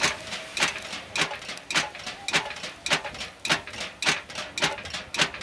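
A flat white lid waved by hand as a fan over a charcoal fire, swishing about twice a second in a steady rhythm, driving air into coals that are slow to catch.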